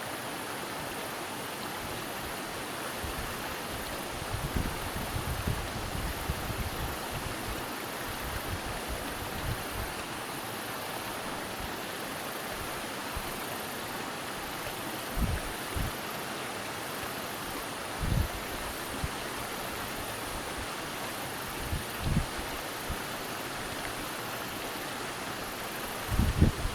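Steady rush of a mountain headwater stream, an even hiss of flowing water, with a few short low thumps on the microphone.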